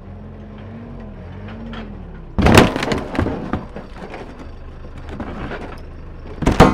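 Diesel engine of a JCB loader running, its revs wavering up and down, then a white six-panel interior door snapping with a loud crack about two and a half seconds in, followed by splintering and crunching. A second sharp crack comes near the end as the door is pushed further.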